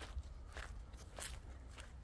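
Footsteps walking at an even pace over dry grass and earth, four crunching steps about every 0.6 seconds, over a low steady rumble.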